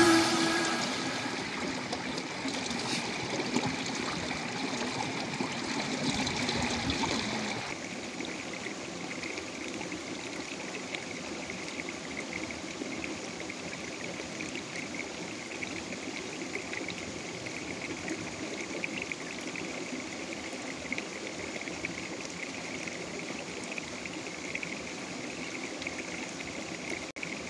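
Water flowing and trickling in a small stream, louder for about the first eight seconds, then a steady, softer flow.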